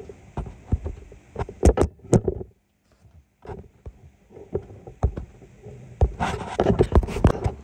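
Irregular knocks, bumps and rustles of handling and movement, with a brief dead gap about two and a half seconds in and a busier run of knocks near the end.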